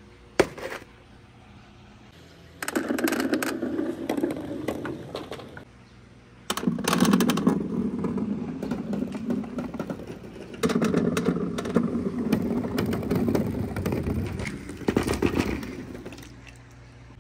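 Rubber Dragon Ball bouncy balls rolling and clattering down a pegboard marble-run chute with wooden side rails: a steady rumble full of small clicks, in three long runs that each start suddenly, the last fading out near the end.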